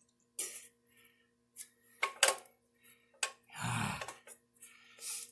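Scattered metallic clinks and knocks of hand tools and small metal parts being handled, with one duller, heavier knock a little past the middle.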